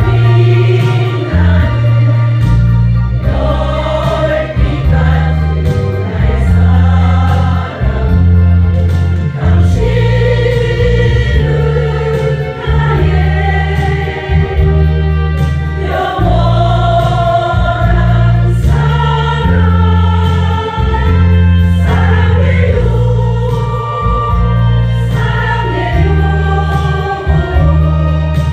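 Women's choir singing in harmony over instrumental accompaniment with low bass notes that change every second or so.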